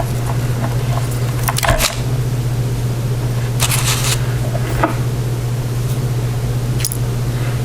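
Light clicks and a brief scrape of small pins and springs being worked out of a padlock core, over a steady low hum.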